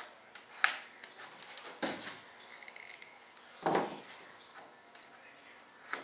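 Workbench handling noises: a sharp click, a short rubbing scrape, a dull knock and a last small click as parts and tools are picked up and set down.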